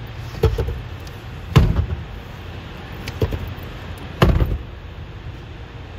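Four sharp thumps a second or more apart, the second and fourth the loudest, over a steady low rumble, as someone handles things around the SUV's rear door.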